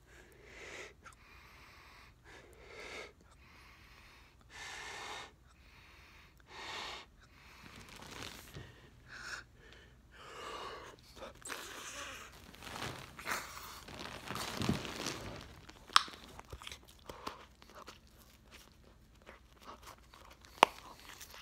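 Mouth sounds from chewing a large wad of bubblegum and blowing bubbles: several breathy puffs of air through the lips, then wet chewing and smacking, with two sharp snaps later on.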